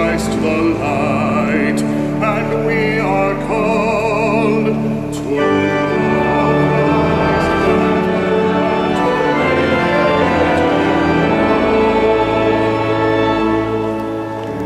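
Church choir singing a hymn with accompaniment. A voice with strong vibrato stands out at first, and about five seconds in the music swells into fuller sustained chords.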